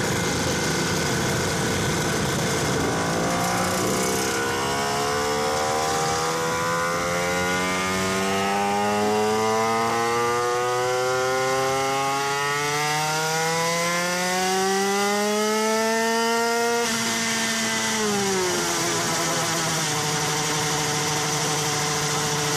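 Two-stroke Aprilia moped engine with an 88cc Bidalot factory cylinder kit on a roller dyno: idling, then revved in a long pull that climbs in pitch in several stages, cut off sharply about seventeen seconds in and dropping back to idle. This is a power run measuring output at the rear wheel.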